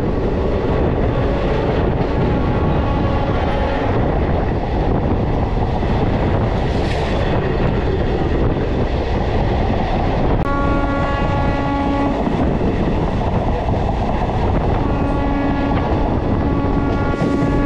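Diesel multiple-unit passenger train running at speed, heard from on board: a steady rumble of wheels on the rails. The train's horn sounds faintly within the first few seconds, then loudly for a second or two about ten seconds in, and again for a longer spell from about fifteen seconds in.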